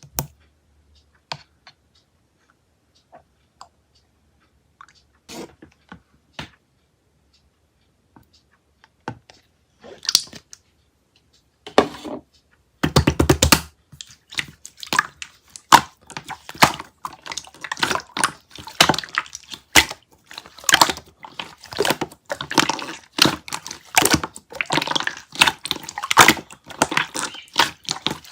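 Clear slime being squished and pressed, making sticky clicks and pops: a few scattered ones at first, then a dense run of crackling pops from about halfway through.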